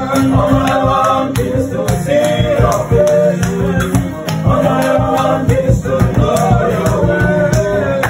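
Voices singing gospel-style music together over an acoustic guitar and a steady percussive beat.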